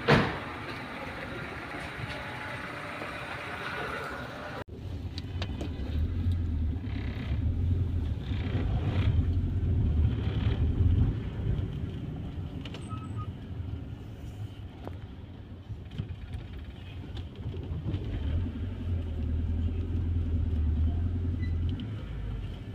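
1996 Honda Civic on the move, heard from inside the cabin: a low engine and road rumble that swells twice. It opens with a sharp knock and a few seconds of steady hum.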